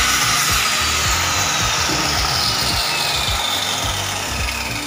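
Handheld electric power tool running as it cuts wood, a steady loud grinding noise with a faint whine that falls in pitch over the first few seconds.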